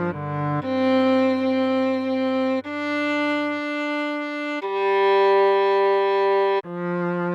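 Viola melody played slowly in long held notes, each about two seconds, over a low sustained bass note that drops out about halfway through.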